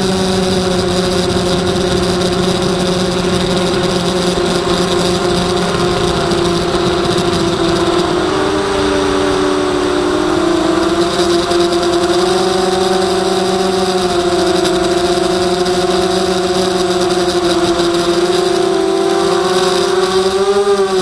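Emax Nighthawk 250 quadcopter's brushless motors and propellers whining, heard from its onboard camera: a steady buzz whose pitch dips and rises slightly about halfway through and again near the end.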